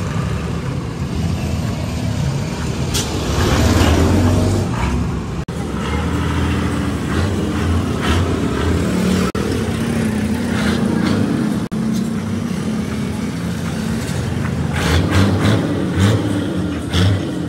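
A heavy vehicle's engine running in short edited clips, the sound breaking off sharply at cuts about five, nine and twelve seconds in.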